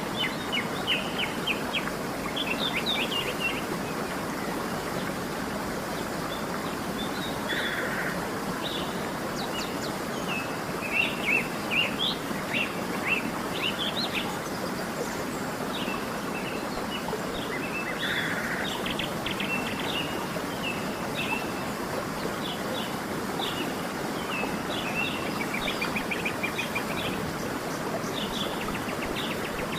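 Steady rushing of a waterfall, with small birds chirping and twittering over it in quick series of short notes throughout.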